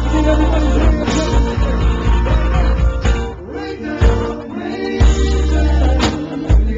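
Live soul band playing with a male lead singer, heavy bass guitar and drums under sustained vocal lines. The band drops quieter about three seconds in and comes back in full about five seconds in.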